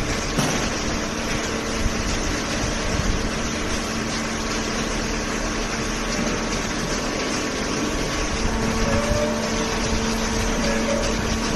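Hydraulic power unit of a fully automatic vertical cardboard baler, running steadily with an even mechanical hum and whine.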